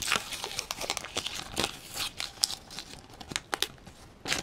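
A wrapper being torn and crumpled in the hands as it is peeled off a plastic surprise egg: dense crinkling and crackling for about three seconds, then a few scattered crackles with a louder one near the end.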